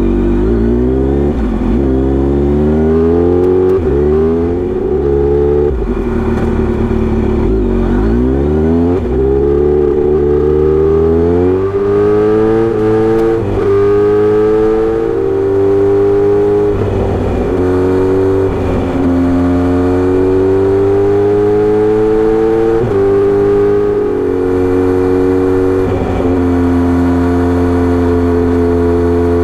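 Kawasaki Z900RS four-cylinder engine through a Misty Kintaro short-pipe exhaust with a 70 mm L silencer, riding and pulling up through the gears: the exhaust note climbs in pitch again and again and drops back at each shift, then settles into a steadier drone with slower rises and a few more shifts.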